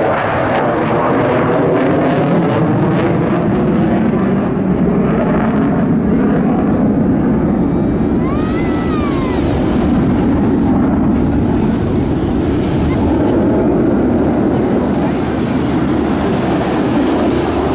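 Jet noise of an RAF Typhoon FGR4's twin Eurojet EJ200 engines in afterburner, heard from far off across the sea as a steady, dull rushing rumble. A short pitched call rises and falls about eight seconds in.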